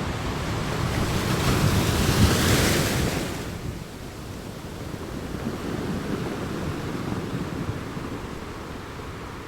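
Sea waves breaking and washing in: one wave swells to a loud hiss about a second in and dies away after about three seconds, leaving a lower steady wash.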